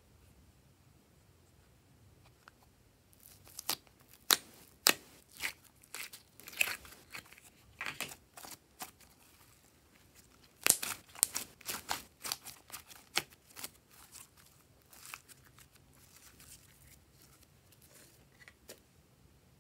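Slime being taken out of its plastic tub and handled: sharp clicks and crackling pops in quick clusters, busiest through the middle, fading toward the end.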